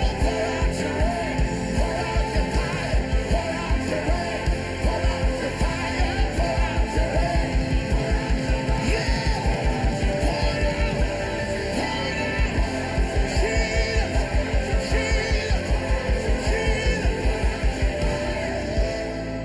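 Live worship band playing loud rock-style music with a steady drum beat that quickens in the middle, while voices sing and shout over it.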